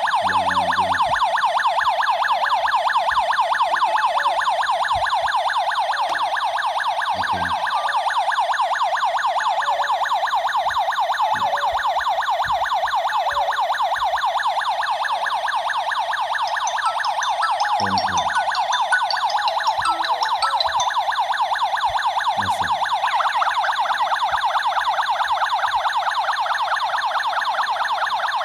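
Tuya Wi-Fi/GSM alarm system's siren sounding continuously in a loud, fast, repeating electronic warble. It is an intrusion alarm, set off by a motion sensor tripped while the system is armed.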